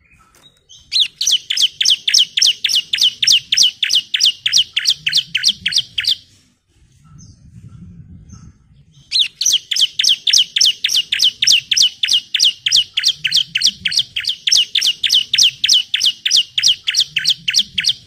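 Bar-winged prinia (ciblek) singing long runs of rapid, sharp repeated notes, about five a second, each a quick downward sweep. The first run breaks off about six seconds in, and after a pause of about three seconds a second, longer run follows.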